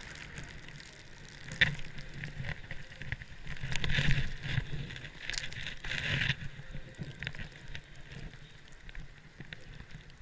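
Snowboard or ski edges sliding and scraping over packed snow, a rough hiss that swells into louder scrapes about four and six seconds in, with a sharp knock about a second and a half in.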